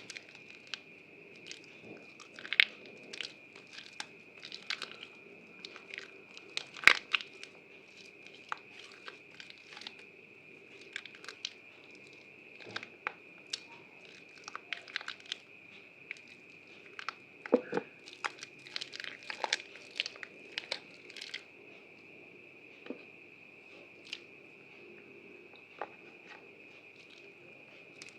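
Soaked Prima Protect White bar soap being squeezed and crumbled by hand: irregular crunchy crackles and snaps, thickest in the first two-thirds and only occasional near the end. A steady high whine sits underneath throughout.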